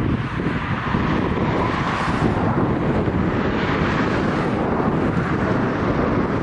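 Airbus A320neo's twin turbofan engines running steadily as the airliner flies low over the runway just before touchdown, with wind buffeting the microphone.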